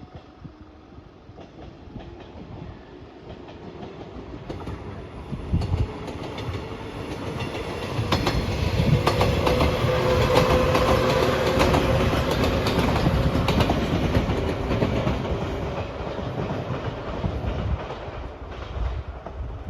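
Electric train passing, growing louder and then fading away, with a rapid clickety-clack of its wheels over the rail joints at its loudest.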